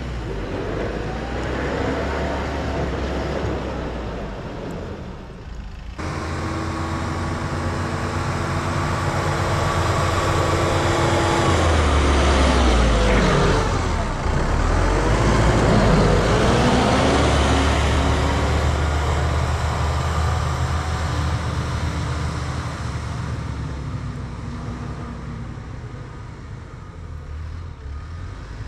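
Kubota M5-091 tractor's diesel engine running as it plows snow and drives past, growing louder to a peak about halfway through, its pitch dropping as it goes by, then fading away.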